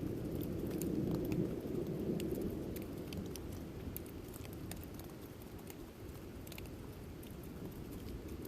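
Thunder rumbling low and dying away over the first few seconds, with scattered rain drops pattering throughout.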